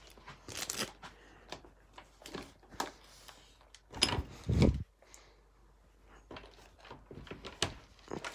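Scattered clicks and rustles of a phone being carried and handled, with a dull thump about four and a half seconds in.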